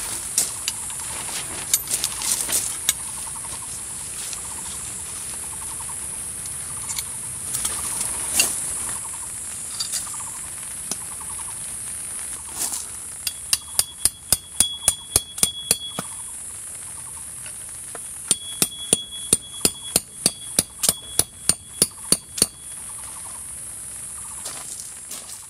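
Two runs of rapid, evenly spaced mechanical clicks, about five a second, each with a thin high tone under it, over a steady high hiss.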